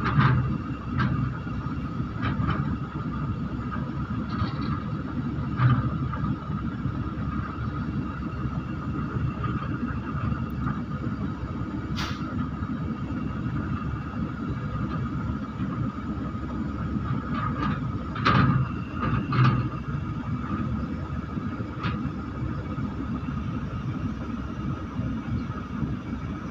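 Wheel loader's diesel engine running steadily as it loads a tractor trolley with earth: a low rumble with a steady whine over it and a few sharp knocks, two close together about two-thirds of the way in.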